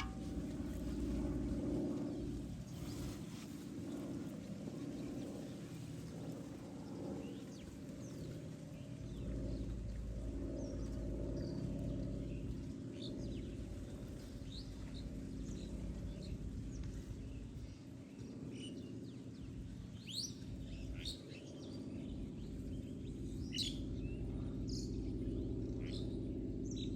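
Small birds chirping outdoors: short, quick calls, scattered and more frequent in the second half, over a steady low background rumble.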